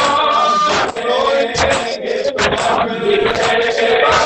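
A male reciter chanting a noha (lament) over a microphone, with a crowd of mourners slapping their chests in a steady rhythm (matam), the sharp slaps landing together with the chant.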